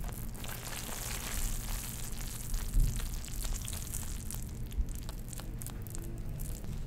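Wooden skewer stirring black colouring through hot, freshly poured molten sugar, giving a dense sticky crackle of fine clicks and a hiss that is busiest in the first few seconds.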